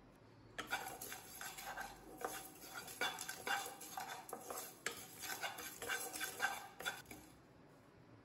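Wooden spatula stirring and scraping dry-roasting sesame seeds, cumin and peppercorns around a nonstick pan, the seeds rattling over the pan surface in uneven strokes for about six seconds.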